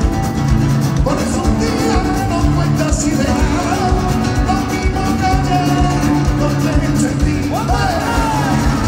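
Live rumba flamenco band playing: strummed acoustic guitars and congas over a steady beat, with a male lead voice singing.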